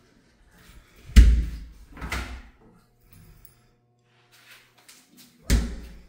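Sliding shower door being pushed along and knocking against its frame: three sharp knocks, the loudest about a second in, a second one a second later and a third near the end.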